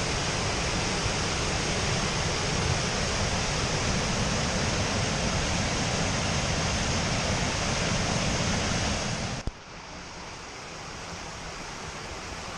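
Steady outdoor rushing noise, heavy and full in the low end, that cuts off abruptly about nine and a half seconds in to a quieter, thinner rushing.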